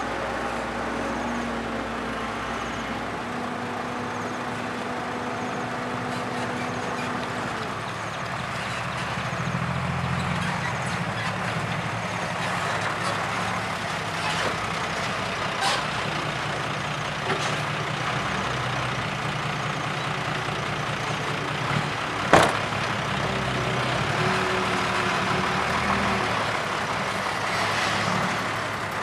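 Heavy diesel engines of a hydraulic excavator and a dump truck running steadily, their pitch shifting as the machine works. A few light clacks, and one sharp bang about two-thirds of the way through.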